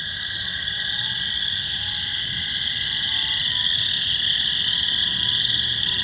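Dense chorus of spring frogs calling without a break: a steady high-pitched layer of calls with a second, lower layer beneath it, slowly growing a little louder.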